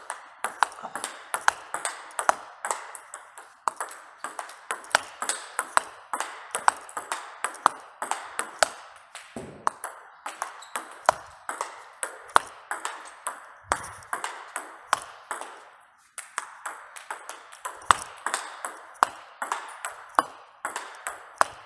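Table tennis ball clicking off the racket and bouncing on the table in a fast, steady run, several hits a second, as backhand topspin strokes are played with a bat faced with Haitian Hippocampus Speed rubber. There is a brief break near 16 s.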